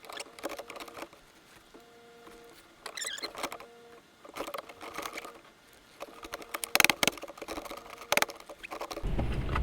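An aftermarket center console's side panel being worked into place: scattered light taps, scrapes and rustles of trim being handled and pushed, with two sharper clicks about seven and eight seconds in. The panel is not going in.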